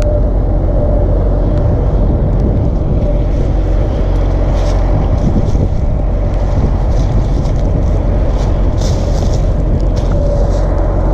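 Rotary combine harvester running steadily while threshing soybeans: a loud, even drone with a steady hum through it. Faint high ticking comes in from about four seconds in.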